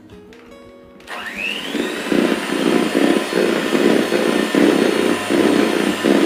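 Electric hand mixer switched on about a second in, its motor whine rising quickly as it speeds up, then running steadily with its beaters churning through egg and sugar batter.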